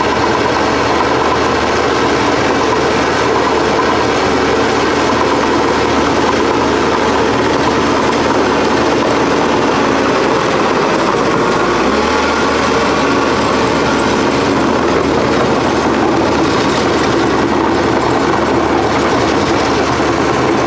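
Small air-cooled engine of a hydraulic power pack running steadily, driving the pump for the excavator's hydraulics.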